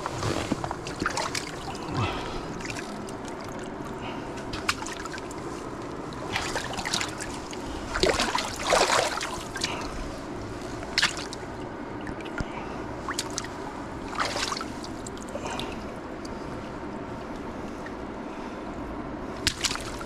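Shallow creek water running steadily, with irregular splashes and sloshes as caught steelhead are moved about in the shallows. The heaviest splashing comes about eight to nine seconds in.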